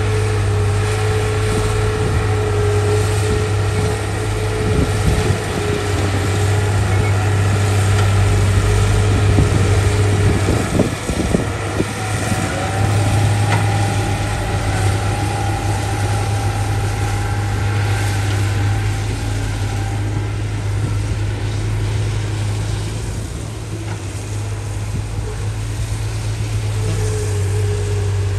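Diesel engine of heavy earthmoving machinery running steadily under load, with a steady whine that steps up higher about 12 seconds in and drops back near the end. A few clanks around the middle.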